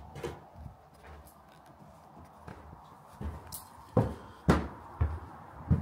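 Footsteps in an empty building: sparse thuds at first, then a steadier run of louder steps about half a second apart from about four seconds in.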